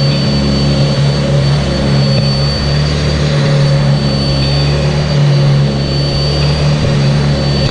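Sanitaire SC679j upright vacuum cleaner running steadily, a motor hum with a constant high whine.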